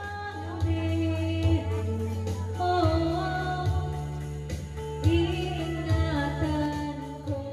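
A woman singing karaoke into a handheld microphone over a backing track, with sustained bass notes under held, wavering sung notes.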